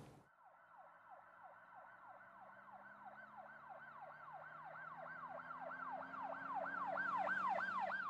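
An electronic siren-like sound: a quick falling sweep repeated about three times a second, over a low steady drone. It fades in and grows louder.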